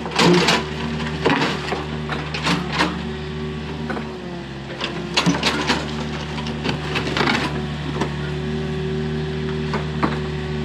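Volvo EW55 wheeled mini excavator's diesel engine running steadily, with several bursts of scraping and clattering as the steel bucket digs into soil and stones.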